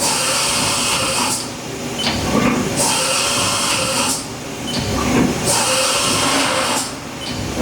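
Haas DT-1 CNC drill/tap center running, with a steady high whine. Three bursts of hiss, each about a second long, come at roughly even intervals.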